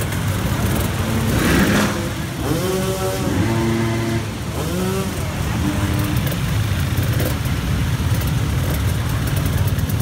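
Several off-road dirt bike engines running at low speed as a column of bikes rolls slowly past close by, a steady rumble with small throttle blips. Voices call out briefly a couple of seconds in.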